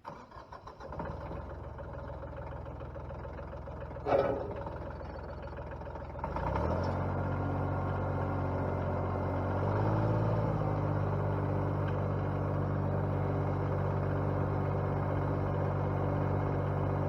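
A 34-horsepower tractor's engine starting with a few sputters, then settling into a steady run, with one brief loud knock about four seconds in. About six seconds in, the PTO-driven BX42S wood chipper is engaged and the sound steps up into a steady, deeper running of engine and spinning chipper, rising slightly once more near ten seconds.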